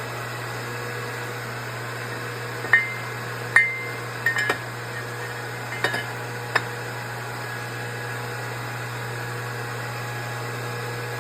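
Metal supercharger snout parts clinking together as they are handled, a handful of sharp clinks with a short ring about three to seven seconds in, over a steady low hum.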